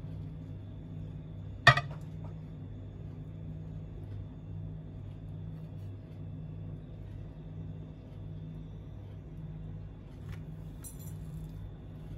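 A steady low hum of room background, with a single sharp clink a couple of seconds in and, near the end, a faint click followed by a brief high jingle.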